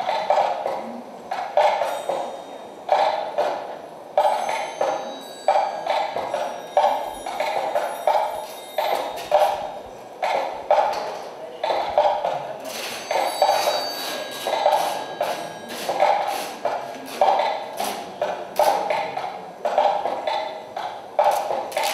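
Rhythmic percussive pulses repeating about twice a second, with sharp clicks over them.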